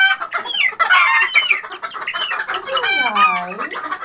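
A mixed flock of chickens, young Jersey Giants among them, clucking and calling over one another, with many short high calls that fall in pitch. About three seconds in comes one long, low call that drops in pitch and then holds.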